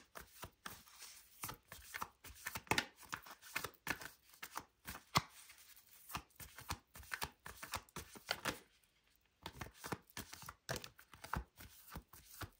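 Tarot cards being shuffled by hand: a faint run of quick, irregular card clicks and rustles, with a short pause about nine seconds in.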